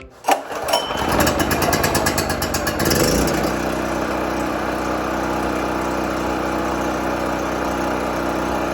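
Champion 4375-watt dual-fuel portable generator's single-cylinder engine being pull-started on choke from cold. It catches on the first pull, runs up unevenly for about three seconds, then settles into a steady run.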